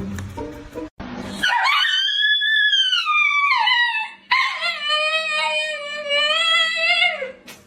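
Dog howling: two long howls, the first rising and then falling, the second held with a slight waver before dropping away.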